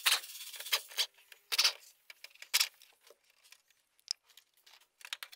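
Sharp clicks and rattles of parts being handled: about five loud knocks in the first three seconds, then fainter scattered ticks.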